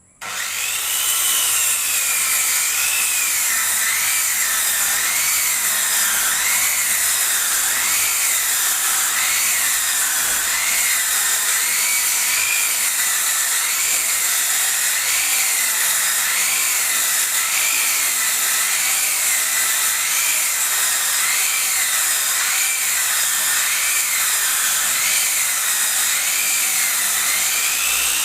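Circular saw machine ripping a wooden plank lengthwise, its blade whine wavering up and down about once a second as the board is pushed through. The sound starts abruptly at the opening.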